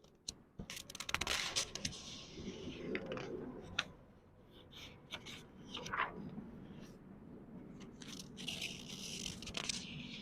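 Pages of a book being turned slowly: paper rustling and crackling, with a fuller page turn about a second in and another near the end, and lighter paper ticks and handling noises in between.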